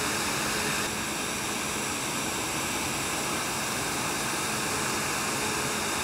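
Claas Lexion 8800 combine harvester working through standing wheat with a stripper header: a steady, even rushing machinery noise.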